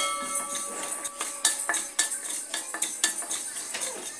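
Wooden spatula stirring and scraping whole spices dry-roasting in a metal kadai, the seeds rattling and skittering over the metal in quick clicks. At the start the pan rings briefly, as if struck by the spatula, fading over about a second.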